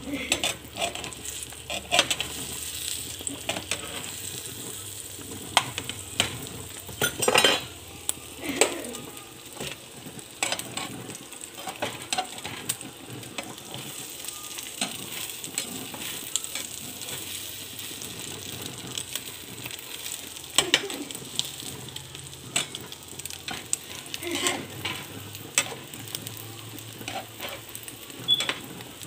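Egg and bread frying in butter in a nonstick pan, sizzling steadily, with frequent short scrapes and taps of a slotted spatula against the pan.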